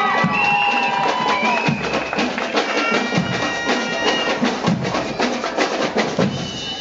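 Marching band playing: held wind-instrument notes over a busy beat of drums and percussion.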